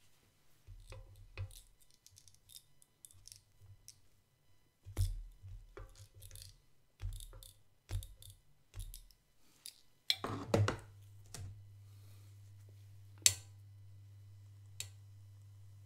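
Light clicks and taps of kitchen tongs and slivered almonds being handled on small chocolate pancakes on an electric griddle. About ten seconds in there is a louder clatter, then a low steady hum sets in, with one sharp click a few seconds later.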